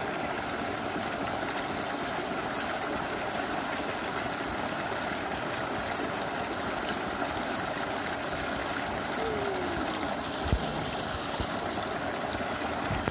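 Water gushing steadily from an irrigation pump's outlet pipe and splashing into a flooded rice paddy, with a single brief knock about ten and a half seconds in.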